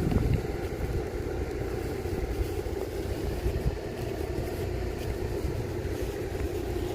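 A steady low mechanical hum that runs on evenly, with no clear events in it.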